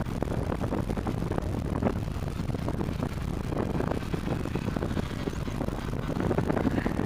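Wind buffeting the microphone over the faint drone of a radio-controlled model Cessna 182's motor and propeller in flight overhead.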